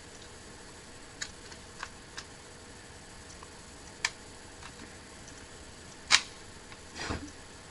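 Plastic housing pieces of a broken hair straightener clicking as they are handled and pushed together: a few light clicks, then a sharp snap about six seconds in and a duller knock a second later.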